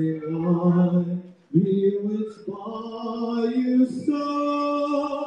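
A boy singing solo without accompaniment into a handheld microphone, amplified through a PA speaker. The melody climbs in steps over sustained notes and settles into a long held note near the end.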